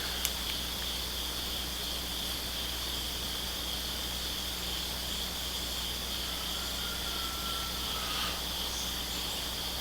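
Steady, high-pitched insect chorus, like crickets, running without a break, over a faint low hum.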